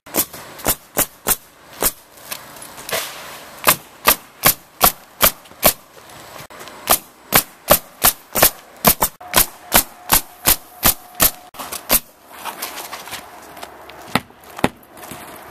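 Roofing nails being driven into asphalt shingles: sharp, evenly spaced strikes at about two to three a second in several runs, with short pauses between.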